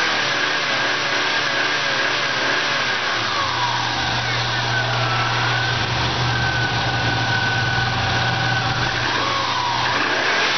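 A 2000 Subaru Legacy's flat-four boxer engine running on test, with a thin steady high whine over it. The engine speed eases down about three seconds in, settles into a deeper idle, and picks up again near the end.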